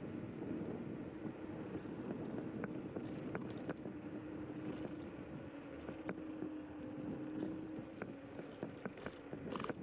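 Zero 10x electric scooter riding along a paved path: the motor's steady hum over tyre and wind rumble, with scattered light clicks and rattles from bumps in the path.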